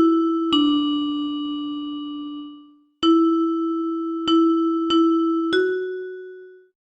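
Music: a slow melody of single struck, bell-like mallet notes, each ringing and fading. It stops briefly about three seconds in, then four more notes follow, the last fading out near the end.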